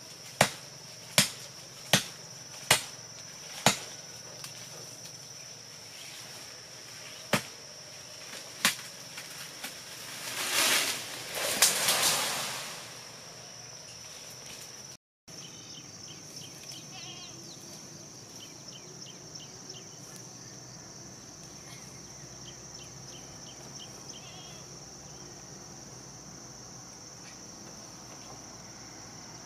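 Chopping at wood with a blade: five sharp strokes in quick succession, then two more spaced strokes, followed by a couple of seconds of loud rustling noise. Insects drone steadily throughout with a high, even tone.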